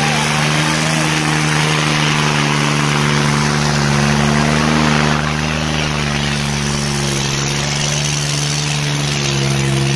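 Diesel engine of a New Holland 5500 Turbo Super tractor running hard under load as it pulls a heavily loaded soil trolley, giving a steady, loud drone. Its pitch sags slightly near the end.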